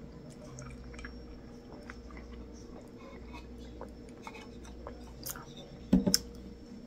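Quiet mouth sounds of sipping juice through a straw from a small can, with many small soft clicks. About six seconds in come a few sharp knocks as the can is set down on the table.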